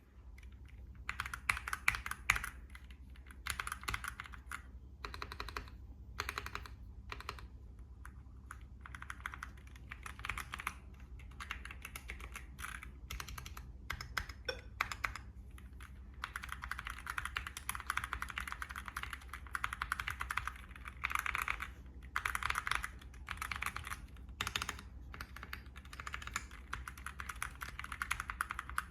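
Typing on a mechanical keyboard: a Lucky65 kit with full foam and Outemu box brown tactile switches. Quick runs of keystrokes come in bursts with brief pauses, with some single strikes louder than the rest.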